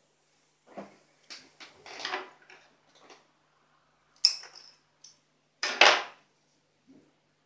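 Scissors and plastic drinking straws handled on a wooden desk: a run of light clicks and rustles, a sharp click about four seconds in and a louder clatter around six seconds.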